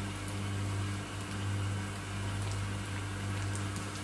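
Oil sizzling with scattered small crackling pops around a coated slab of food shallow-frying in a wok, over a steady low hum that slowly swells and fades.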